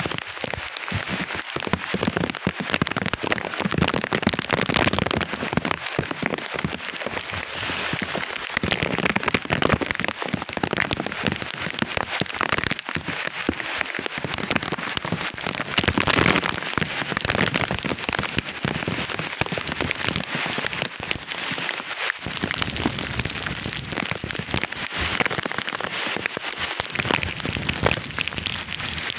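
Typhoon rain pouring and storm wind gusting through banana plants, a dense steady rush that swells louder several times.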